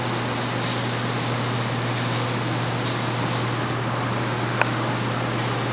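Steady air-conditioning noise in a room: an even rushing hiss with a constant low hum and a thin high whine, and one faint click about four and a half seconds in.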